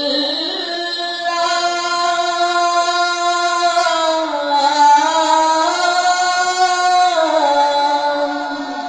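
A man singing a Bengali Islamic song (gojol) into a microphone, holding one long drawn-out note whose pitch shifts a few times.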